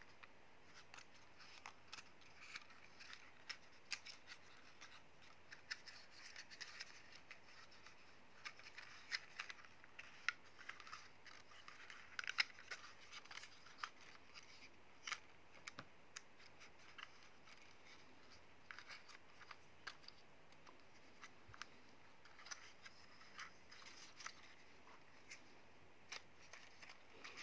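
Faint, scattered plastic clicks and scrapes as the folding arms of a small DroneX Pro quadcopter are handled and folded back against its body.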